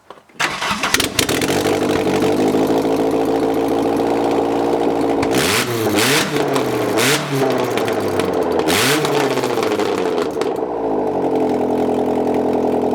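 A 1993 Saturn SW2's 1.9-litre four-cylinder engine, running with no exhaust manifold or header at all, so it fires straight out of the exhaust ports. It starts about half a second in and runs loud and steady. Around the middle it is blipped three times, with sharp cracks as the revs rise, then it settles back to idle.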